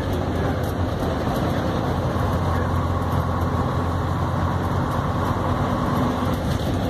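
1949 Bristol K5G bus's Gardner five-cylinder diesel running steadily as the bus drives along. A thin high whine joins about two seconds in and stops about six seconds in.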